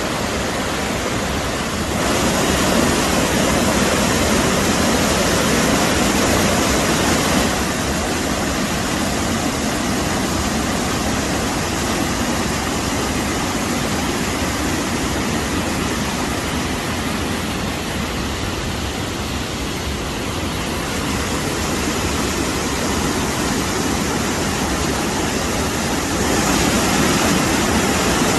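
Waterfall: a steady, full rush of falling water that gets louder or softer in steps a few times.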